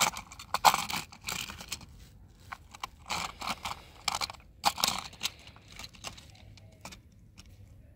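Hand handling a plastic toy car-transporter truck loaded with die-cast toy cars: irregular clicks, knocks and rattles of plastic, busiest in the first five seconds and thinning out after.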